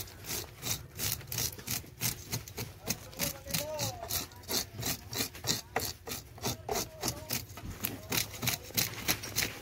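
A toothed metal fish scaler raking the scales off a large sweetlips, in quick even rasping strokes about three or four a second.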